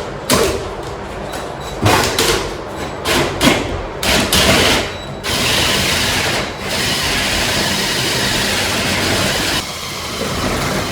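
Irregular knocks and taps of hand work on laminate flooring for about the first five seconds, then a power tool running steadily for about four seconds before easing off.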